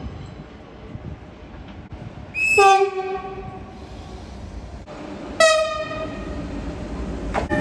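Train horn sounding two blasts over the rumble of a train. The first, about two and a half seconds in, is the loudest and lasts about a second and a half, dipping slightly in pitch as it starts. The second, about five and a half seconds in, is shorter, and another horn tone starts just before the end.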